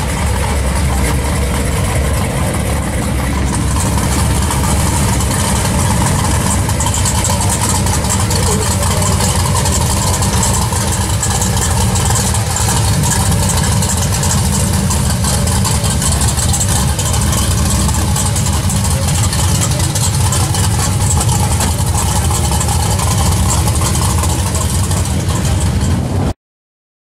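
V8 exhausts of classic American muscle cars idling and moving at low speed, loud and steady with most of the sound low and deep, including the big-block of a Chevelle SS 396 heard from behind its tailpipes. The sound cuts out abruptly for under a second near the end.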